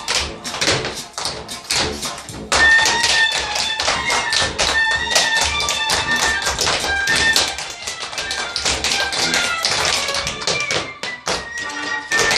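Tap shoes striking the floor in quick, rhythmic clicking steps of tap dancing, over music with a melody.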